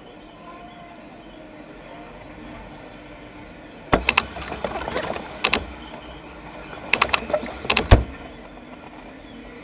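Two clusters of sharp knocks and clicks, about four and seven seconds in, over the low steady hum of a stationary lorry's idling engine heard inside the cab.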